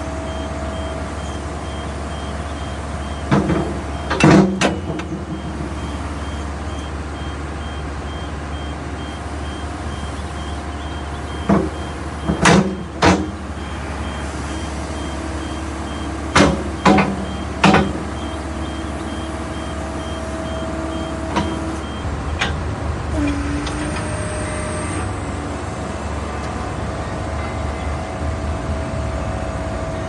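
John Deere 345G excavator's diesel engine running steadily, with three groups of loud metal clunks from the hydraulic quick coupler and bucket as the front lock snaps on. A faint, even beeping runs until about two-thirds of the way through.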